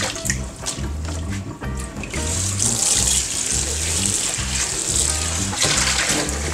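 Water poured out of a plastic tub into a stainless steel sink, then a kitchen faucet running steadily into the tub from about two seconds in until shortly before the end, as the tub is rinsed and tipped out again.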